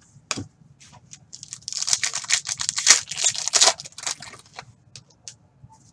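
Trading card pack wrapper being torn open and crinkled by hand: a dense crackle lasting about two seconds in the middle, with a single click shortly before it.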